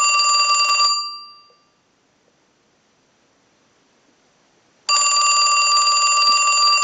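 Western Electric Trimline wall telephone's newly replaced bell ringing in on a standard ring cycle. A ring stops about a second in, the phone is silent for about four seconds, and the next ring starts about five seconds in. This is a ring test confirming that the bell now works.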